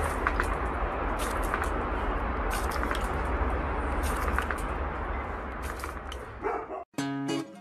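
Steady rush of water from a garden hose spray nozzle while a dog snaps at the stream, with scattered sharp clicks. Near the end the sound drops out and gives way to music with plucked guitar.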